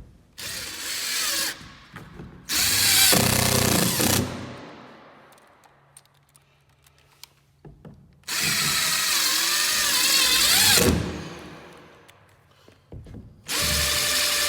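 Power drill running in four bursts of one to three seconds each, its pitch wavering under load and winding down after each burst.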